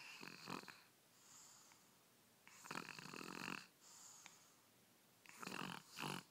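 A baby snoring faintly: three snores, about two and a half seconds apart, with fainter breaths between them.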